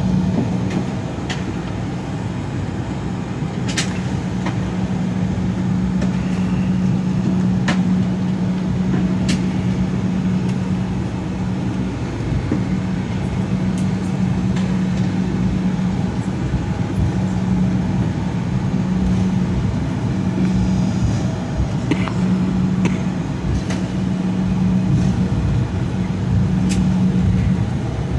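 Cabin noise of an Embraer E175 taxiing: a steady low hum over a rumble from the engines and air system, broken by a few brief, light clicks.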